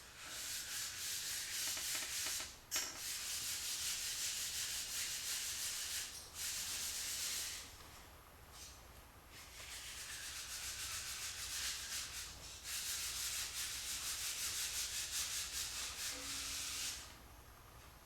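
Abrasive rubbing in four long stretches of quick back-and-forth strokes, with short breaks between them.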